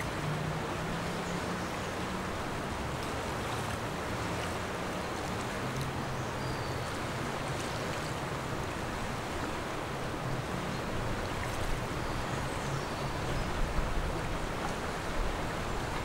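River water flowing, a steady even rushing, with a low hum underneath that fades out in the second half and a few slightly louder bumps near the end.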